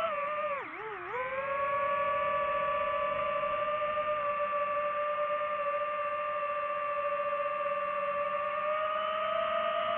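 DJI FPV drone's motors and propellers whining. The pitch drops sharply twice about a second in as the throttle eases off, then climbs back and holds steady, rising slightly near the end.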